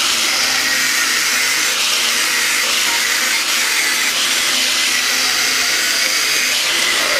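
Angle grinder with an abrasive disc grinding steel, taking the welded-up stud holes flush on a Land Rover axle casing's differential mounting face. Steady grinding with a faint high whine.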